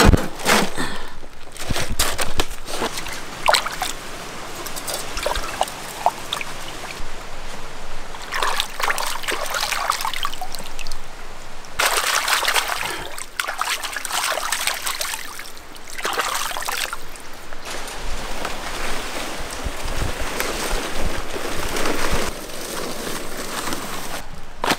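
Water trickling and sloshing, with scattered clicks and knocks that come and go in stretches.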